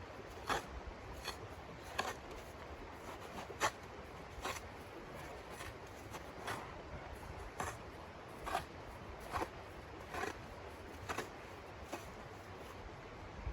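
Footsteps crunching in snow at a walking pace, one short crisp crunch about every second, over a soft steady hiss.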